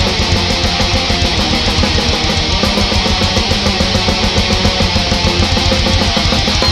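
Live metal band playing loud: distorted electric guitars over fast, steady drumming.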